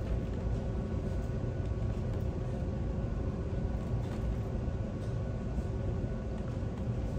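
Steady low rumble with a faint mechanical hum.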